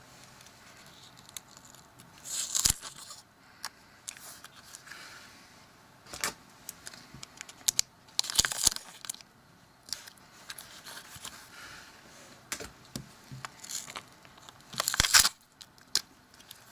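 Sticky tape being pulled off the roll, torn and pressed onto a phone's glass screen, in several short bursts with small clicks and handling noise between.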